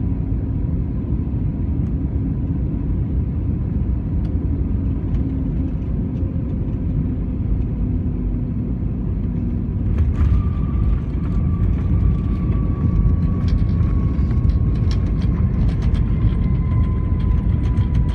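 Airliner cabin noise over the wing during landing: a steady engine and airflow rumble. About halfway through, the wheels touch down with a sudden jolt. The noise then grows louder with a thin whine that slowly drops in pitch and quick rattling from the cabin as the plane rolls out on the runway.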